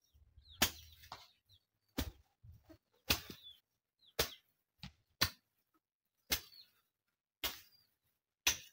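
A hand hoe chopping into soil, eight sharp strikes about a second apart.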